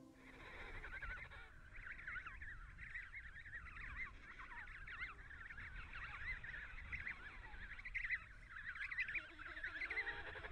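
A colony of emperor penguins calling: many overlapping short, high, warbling calls, faint and continuous.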